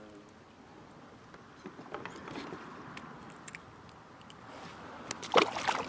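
Scattered small clicks and light knocks of fishing tackle being handled aboard a plastic kayak, growing louder and busier near the end.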